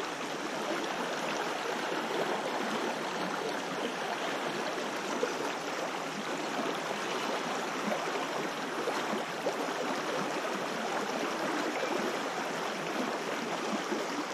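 Creek water rushing steadily past the bank over broken, riffled current: an even, unbroken wash of water noise.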